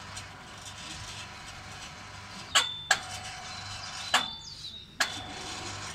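Bungee trampoline in use: a child's landings on the mat give sharp thumps with a brief metallic ring from the springs and fittings. Four land in the second half, about a second apart.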